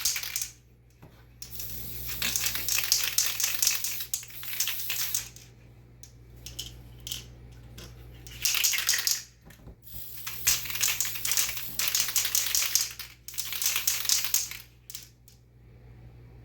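Aerosol can of Mr. Super Clear semi-gloss lacquer top coat spraying in several hissing bursts of one to four seconds each, with pauses between passes.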